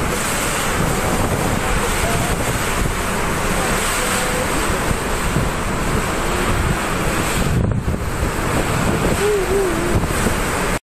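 Typhoon wind and driving rain: a loud, steady rush of gusting wind buffeting the microphone, with a brief dropout about eight seconds in.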